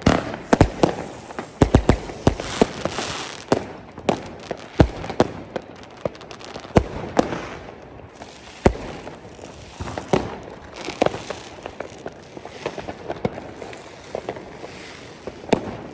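Fireworks and firecrackers going off all around, with irregular sharp bangs over constant crackling. The bangs are densest in the first few seconds, then come more sparsely, with a few big ones about five, seven and nine seconds in.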